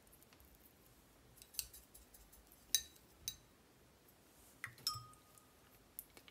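Light taps and clicks of a paintbrush against a watercolour pan palette as paint is picked up and mixed, about six in all, one near five seconds followed by a short ringing note.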